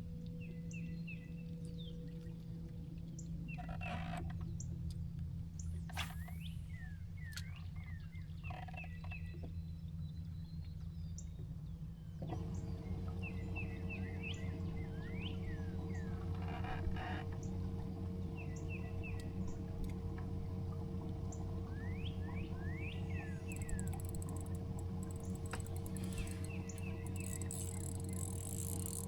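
Small birds chirping in short repeated calls and quick falling notes, over a steady low mechanical hum that steps up and grows louder about twelve seconds in.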